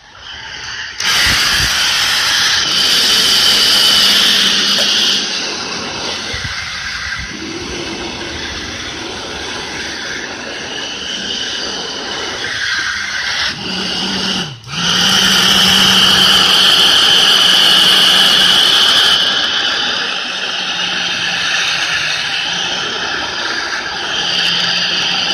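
Small electric fan inside a tape-wrapped tube, run from a transformer power supply, whirring with a steady hum and rush of air. It spins up in the first second or two, and about fifteen seconds in it briefly slows and picks back up.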